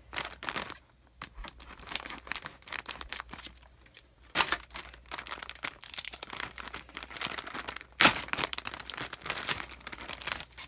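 Clear plastic bag crinkling as it is handled and opened, with irregular crackles and a louder, sharp crackle about eight seconds in.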